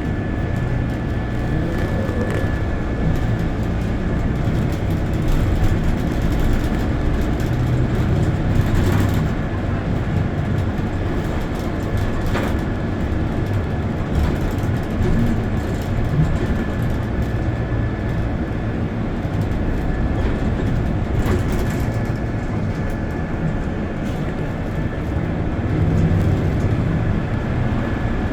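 Steady rumble of a moving bus heard from inside, with a faint steady high whine over it and a few light knocks.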